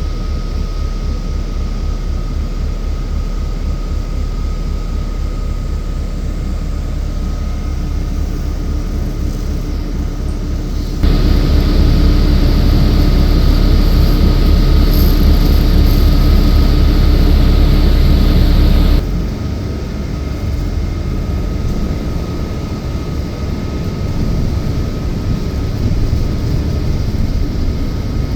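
Inside a moving city bus: steady engine and road rumble with a low throb. About eleven seconds in it gets suddenly louder for about eight seconds, as the bus pulls under power, then drops back to the quieter run.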